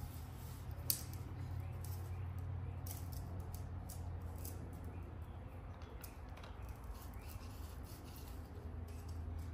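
Spline roller tool pressing rubber spline into the channel of an aluminium screen frame: scattered light clicks and scrapes, with one sharper click about a second in. A steady low hum runs underneath.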